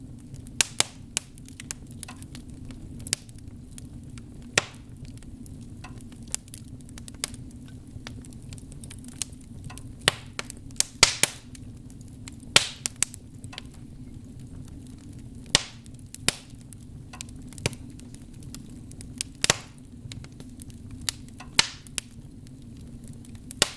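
Wood fire burning in a fireplace: irregular sharp crackles and pops, several seconds apart at times and in quick clusters at others, over a steady low rumble of the flames.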